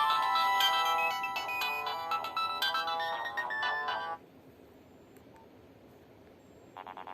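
A Nokia 1600 mobile phone plays a ringtone melody that stops suddenly about four seconds in. After a short pause, a different ringtone starts near the end with a fast run of evenly repeated notes.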